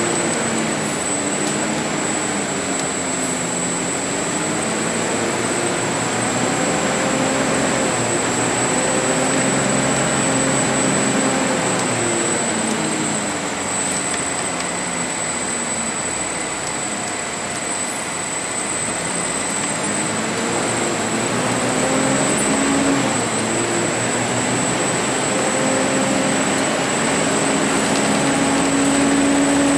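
Volvo B10BLE CNG bus heard from inside the saloon while under way: the engine note rises and falls several times as the bus accelerates and eases off, over steady road and tyre noise, with a thin steady high whine.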